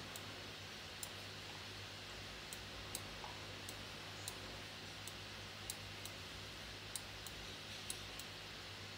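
Light, sharp clicks at irregular intervals, roughly one or two a second, from a computer's pointing device as a 3D dental scan is turned on screen, over a steady low hum.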